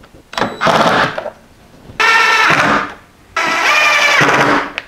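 Cordless drill/driver motor whining in three short runs of about a second each, driving screws through a pillow block bearing's mounting holes into a wooden block.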